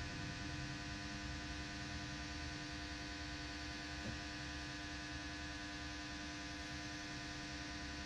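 A steady electrical hum and buzz, unchanging in pitch and level.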